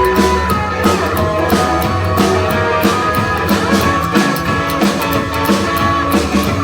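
A rockabilly band playing an instrumental break with no vocals: electric guitar over a steady drum beat.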